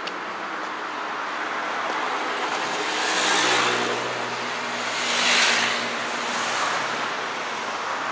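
Cars passing close by on a city street: steady traffic noise with two passing swells of tyre and engine sound, about three and a half seconds and five and a half seconds in, an engine hum under them.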